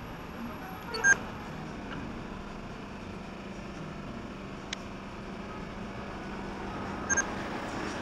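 Steady city background noise with traffic hum, and two short high-pitched beeps, one about a second in and a fainter one near the end.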